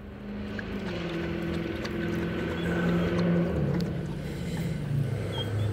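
A motor engine hum, getting gradually louder while its pitch slowly drops, like a vehicle passing nearby.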